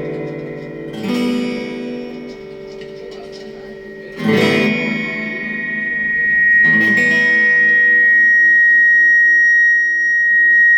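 Acoustic guitar strummed: three chords, struck about a second in, about four seconds in and near seven seconds, each left to ring. After the last chord a high steady tone grows and holds loudly to the end.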